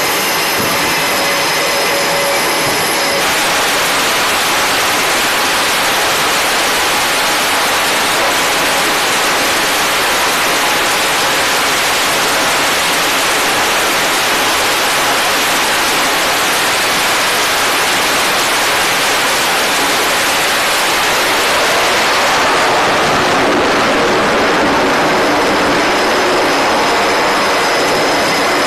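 F/A-18 Super Hornet's twin jet engines at full power on a carrier's steam catapult, a loud steady roar. The engine whine gives way to the full roar about three seconds in, and near the end the roar thins and a whine returns as the jet launches and moves away.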